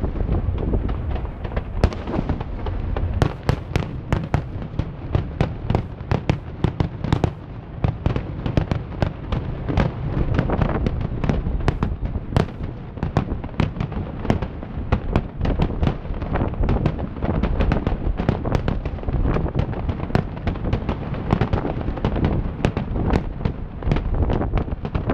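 Fireworks display: a dense barrage of shell bursts, many sharp bangs in quick succession over a continuous low rumble.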